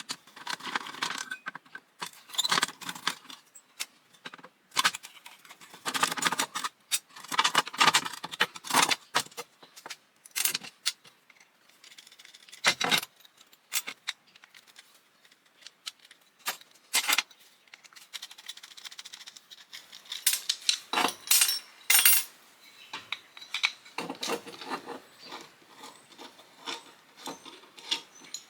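Small metal parts and screws of an old fuse box clinking and rattling as it is taken apart by hand, in irregular bursts of clicks with a few sharper clinks.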